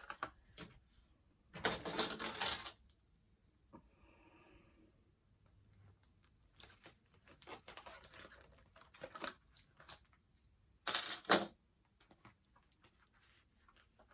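Handling of a fashion doll's plastic accessories and packaging: scattered small plastic clicks and taps, with two short rustling bursts, one about two seconds in and one near the end.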